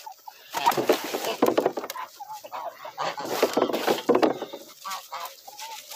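Dry chopped corn-stalk forage rustling in repeated bursts as it is pressed down hard by hand into a plastic drum, packed tight. A hen clucks faintly a few times in between.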